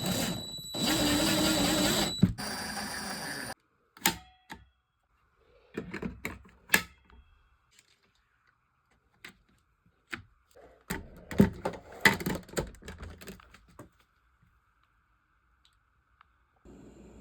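Handling noises from unboxing and fitting together the parts of a cordless stick vacuum: a few seconds of rustling and scraping near the start, then scattered clicks and knocks of plastic parts.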